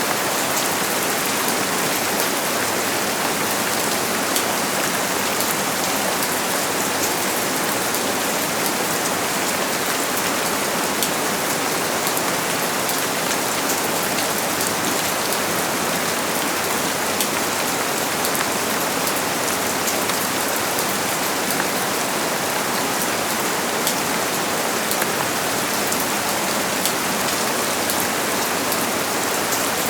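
Steady rain falling on a surface, a continuous even hiss made of many fine, close drop hits.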